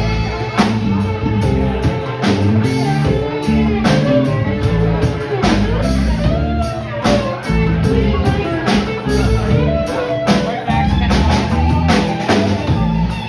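Live band playing electric guitars over a drum kit, with a lead line whose notes bend up and down in the middle.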